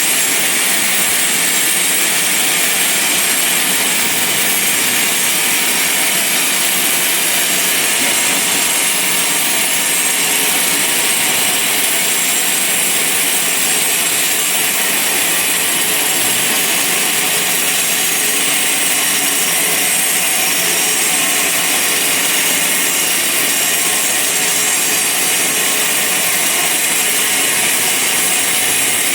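Bandsaw mill running with its blade cutting lengthwise through a large log: a steady, loud, high hiss that does not let up.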